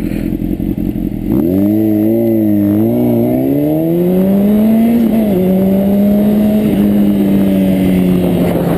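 Honda CBR600RR inline-four engine pulling away. After a low rumble, its note climbs unevenly for a few seconds, drops at a gear change about five seconds in, then holds nearly steady as the bike cruises.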